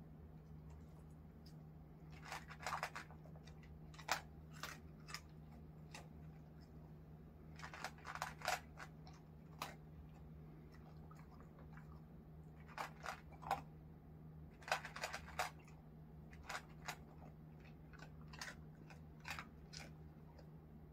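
A basenji crunching dry kibble. It comes in clusters of sharp crunches with pauses of a second or more between mouthfuls.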